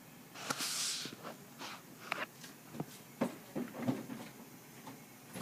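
Baby hiccuping: a breathy rustle about half a second in, then a quick, irregular string of short, sharp catches.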